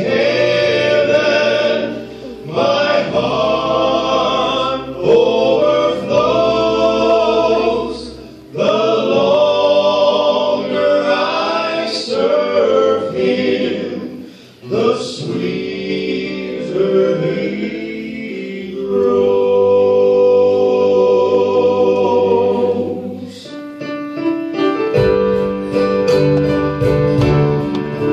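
Church congregation and choir singing a gospel hymn with instrumental accompaniment, in phrases with short breaths between them. Near the end the singing stops and a steady strummed guitar rhythm with bass begins.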